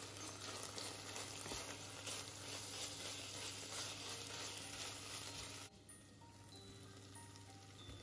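Diced chicken and onion with red paste sizzling in a stainless steel pot as it is stirred with a wooden spoon. The sizzle drops abruptly to a quieter level just before six seconds in, with faint light music notes behind it.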